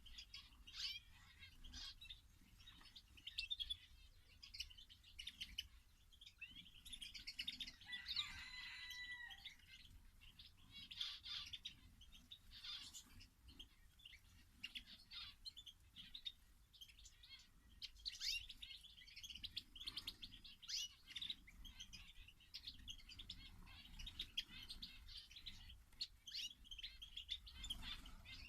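A mixed flock of aviary finches and canaries chirping and twittering, many short calls overlapping, with a brief held whistle about eight seconds in.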